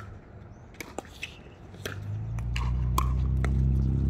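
Pickleball paddles hitting the hard plastic ball in a rally, sharp pocks at irregular intervals. From about halfway in, a loud low rumble builds and stays, louder than the hits.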